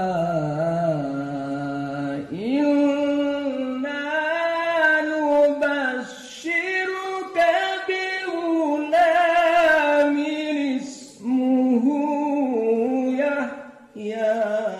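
A male qari reciting the Quran in slow, melodic tajwid chant in maqam Bayyati. He sings drawn-out, ornamented phrases with short breaks for breath between them.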